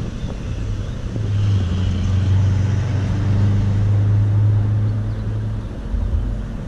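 A road vehicle's engine running close by, a steady low hum that comes up about a second in and drops away near the end, over general street noise.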